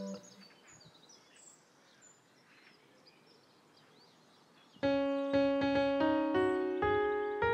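Quiet garden ambience with faint bird chirps. About two-thirds of the way in, a piano or electric-piano melody starts, with a new note about every half second.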